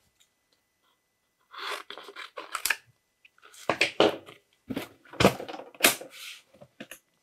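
Photographic paper being handled and divided into two strips: crisp paper rustles and sharp snaps in several short spells, starting about a second and a half in.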